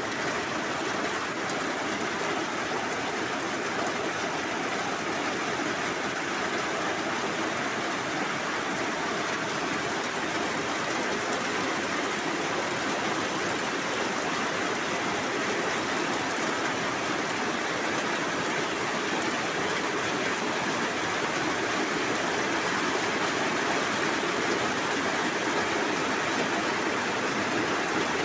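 Torrential rain in a rainstorm, falling heavily on corrugated metal roofing as a steady, dense roar that grows a little louder toward the end.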